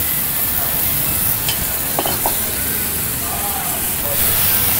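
Monjayaki batter and dashi broth sizzling in a steady hiss on a hot teppan griddle as the broth is poured in and stirred with metal spatulas. A few short clicks come about two seconds in.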